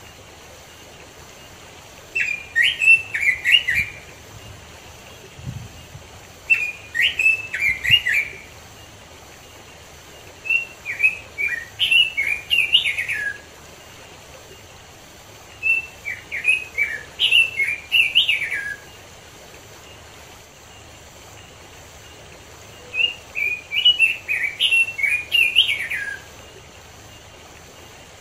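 Red-billed leiothrix (Pekin robin) singing: five rapid, warbling song phrases of two to three seconds each, separated by pauses of a few seconds.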